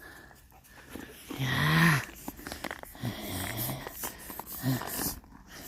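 A dog making breathy, grumbling vocalizations while playing: a longer one about a second in, then two shorter ones.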